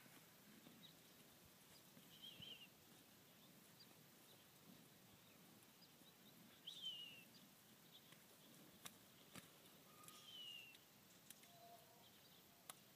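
Near silence with three faint, short falling bird chirps spread through it and a few soft clicks.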